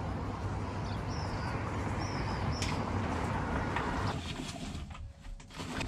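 Outdoor city street ambience: a steady hum of traffic with a low rumble and a few short high chirps. About four seconds in it drops suddenly to the quiet of an indoor room.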